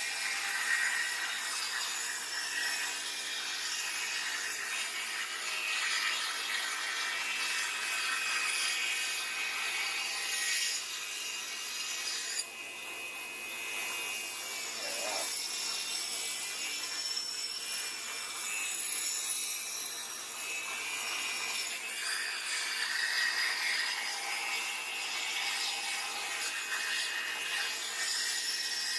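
Steel knife blade forged from a railroad spike being worked with an abrasive tool: a steady rasping, scraping noise that dips briefly about twelve seconds in.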